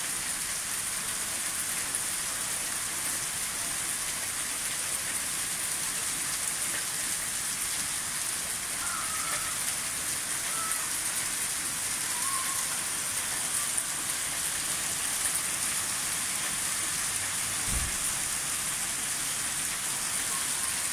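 Small hail mixed with rain falling steadily, a dense pattering hiss of pellets striking concrete patio pavers and the ground, unbroken throughout.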